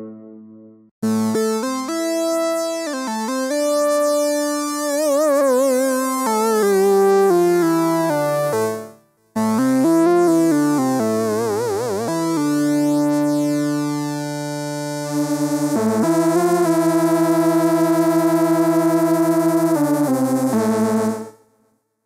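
SynthMaster software synthesizer playing vintage-style presets as sustained chords from a keyboard. The pitch wavers in places, there is a short break about nine seconds in, and over the last several seconds the volume pulses quickly.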